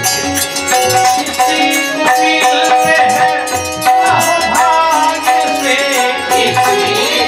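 A man singing a Hindu devotional bhajan line over held harmonium tones, with small hand percussion keeping a steady beat.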